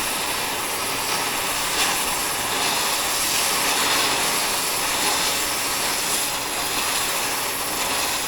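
Oxy-fuel torch flame running with a steady hiss, heating a steel bar red-hot so it can be bent into a loop.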